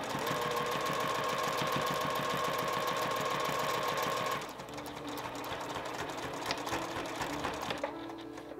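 Juki TL-2010Q straight-stitch sewing machine running a straight top-stitch along a fabric strip. It stitches fast and steadily for about four seconds, then slows to a quieter, slower pace as the seam is guided, with a couple of sharp clicks at the very end.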